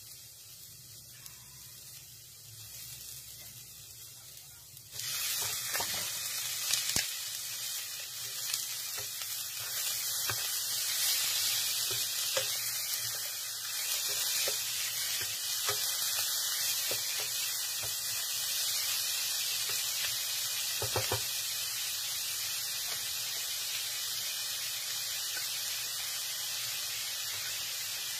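Squid and sautéed onions sizzling in hot oil in a pan. The sizzle jumps sharply louder about five seconds in, as the squid goes into the oil, then holds steady, with scattered clicks and scrapes of a utensil stirring.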